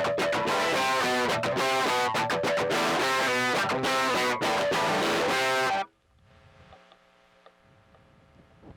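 Electric guitar played through a pedalboard with a distorted tone, picked chords and notes in a steady rhythm. The playing stops abruptly about six seconds in, leaving only faint amplifier hum.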